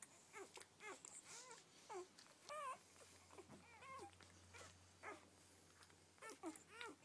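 Newborn Rhodesian ridgeback puppies whimpering and squeaking as they nurse: a faint run of many short cries, each rising then falling in pitch, following one another closely.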